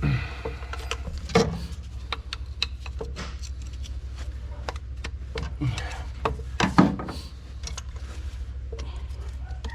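Hand work on a tractor's broken bolt: scattered metal clicks and knocks with several short squeaks that drop in pitch, over a steady low hum.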